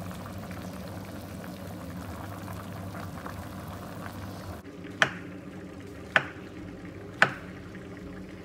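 Tomato chicken stew simmering in a pan. About halfway through, a kitchen knife slices through button mushrooms onto a wooden chopping board: three sharp chops about a second apart.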